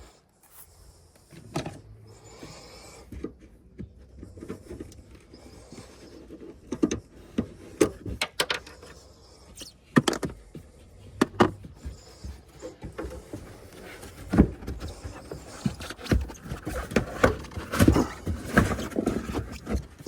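Plastic trim clip being worked loose and the boot's carpet and plastic trim panels handled: irregular clicks, knocks and rustling, busier near the end.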